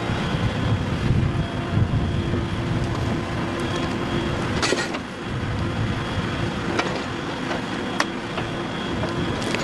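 Heavy machinery's diesel engine running steadily, with several sharp knocks and clanks.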